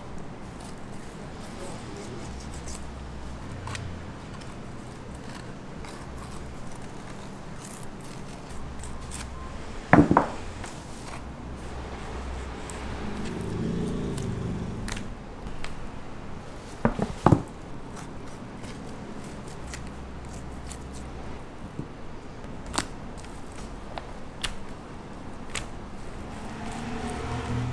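Restaurant kitchen work: a steady low hum under scattered light clicks and a few sharp knocks, the loudest about ten seconds in and two close together a few seconds later.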